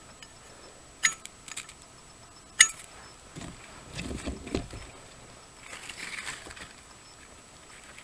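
Two sharp, loud scraping strikes about a second and a half apart, then softer rustling and handling sounds, during fire-lighting with a Fairbairn-Sykes commando knife.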